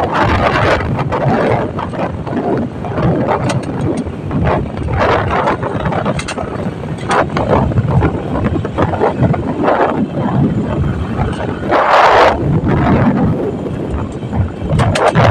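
Wind buffeting the microphone while riding on a moving motorcycle, over the engine and road noise. The buffeting comes in uneven gusts, with a stronger gust about twelve seconds in.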